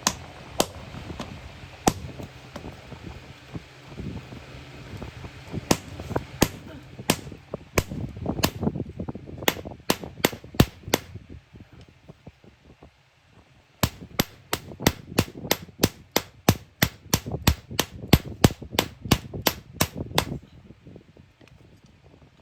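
Hand hammer striking iron: scattered single blows at first, then a fast, even run of about three blows a second for several seconds that stops shortly before the end.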